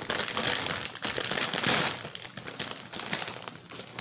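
Clear plastic pasta bag being pulled open and handled, crinkling loudly for about two seconds, then softer rustling as a hand reaches inside.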